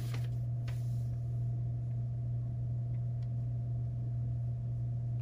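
A steady low hum with a fainter, higher steady tone above it, and a few faint light taps.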